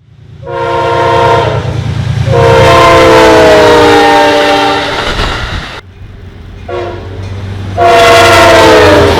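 Union Pacific freight locomotive's air horn blowing the long-long-short-long grade-crossing signal, its notes sagging slightly in pitch through each blast, over the low rumble of the diesel. It is one of the horns called among the worst train horns, sounding like a wounded animal.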